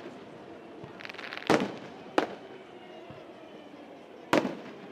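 Aerial firework shells bursting: a short crackle leads into a loud bang about a second and a half in, a second bang follows under a second later, and a third comes near the end.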